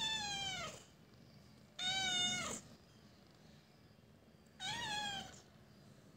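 A young cat meowing three times, about two and a half seconds apart. Each meow is high-pitched and drops in pitch as it ends.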